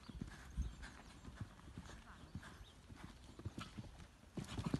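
Hoofbeats of a Poney Français de Selle stallion cantering on an arena's sand surface, an uneven run of soft thuds. Near the end comes a cluster of heavier strikes as the pony takes a jump and lands.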